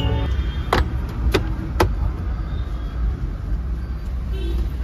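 Three sharp clicks about half a second apart, from the armrest's plastic fittings being handled at its base, over a steady low rumble.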